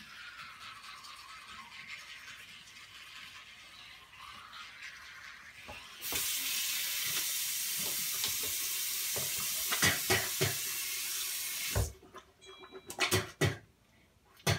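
Bathroom sink tap turned on, water running hard into the basin for about six seconds, then shut off abruptly. A faint high hiss comes before it, and a few sharp knocks follow.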